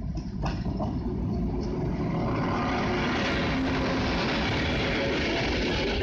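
Frecciabianca train, an E 414 electric locomotive hauling its coaches, passing close by: a loud, steady rush of wheels on the rails, with a few sharp clicks as the locomotive comes up in the first second.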